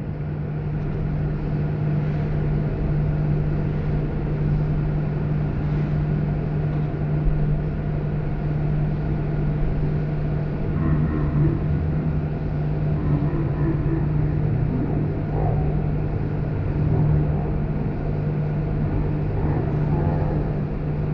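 Machinery of a water test tank running: a steady low hum over a constant rumble as the water is driven and stirs up sediment.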